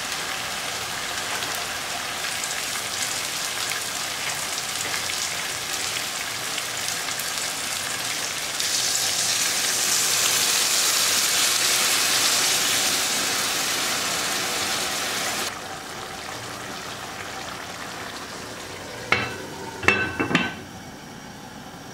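Chicken thighs, potatoes and carrots sizzling in tomato sauce in a hot frying pan, with tongs moving the food. Water poured into the hot pan makes the sizzling louder and brighter for several seconds, and then it drops suddenly to a quieter simmer. Near the end a glass lid is set on the pan with a few clinks.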